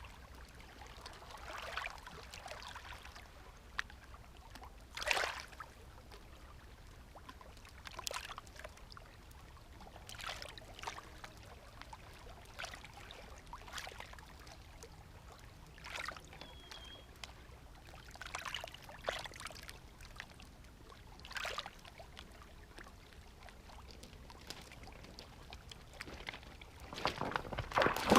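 Small waves lapping at a lakeshore: a soft wash every couple of seconds, unevenly spaced.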